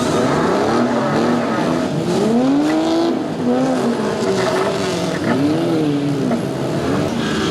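Several demolition derby car engines revving at once, their pitches rising and falling in overlapping swells.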